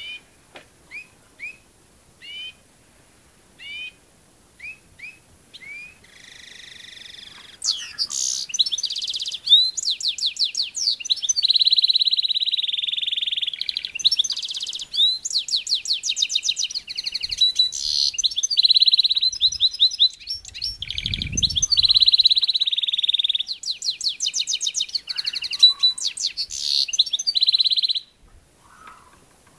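Caged finches: short separate chirps, spaced under a second apart, then from about six seconds a loud continuous song of rapid trills and long rolling trills that breaks off suddenly near the end.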